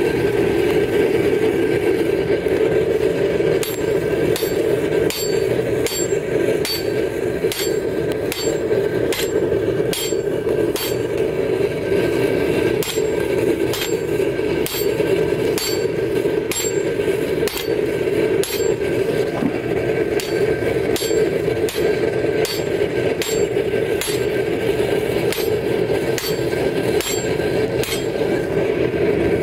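Hand-hammer blows on red-hot leaf-spring steel worked over a splined shaft on an anvil. They begin a few seconds in and land irregularly about once or twice a second, each with a short metallic ring. A steady rushing noise runs beneath.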